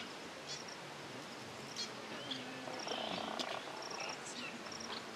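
Outdoor ambience of insects and birds: a steady hiss with scattered short, high chirps and brief whistled calls.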